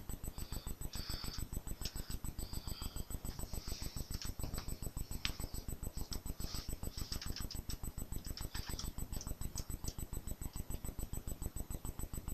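Light scratching, rustling and small clicks as a plastic scale model airliner is handled and hung from a ceiling by its string, over a steady low pulsing of about seven beats a second.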